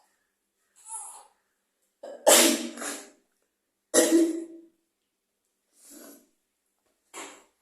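A person sneezing hard twice, about two and four seconds in, brought on by tickling the nose with a cotton bud. Quieter short sounds come before and after the sneezes.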